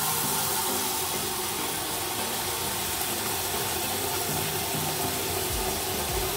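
Kitchen tap water pouring in a steady stream into a collapsible plastic-and-rubber bucket, splashing into the water already in it as it fills.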